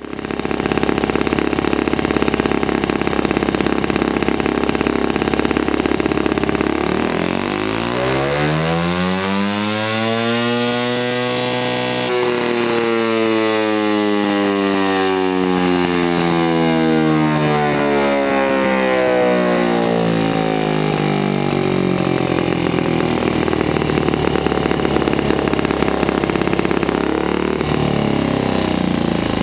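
Saito FA-40a single-cylinder four-stroke model engine with its original carburettor, running loud on a flywheel dyno. It idles, then about seven seconds in it is opened up and its pitch climbs steadily for about five seconds as it spins up the heavy flywheel. The pitch then falls slowly over about ten seconds and it settles back to a steady idle.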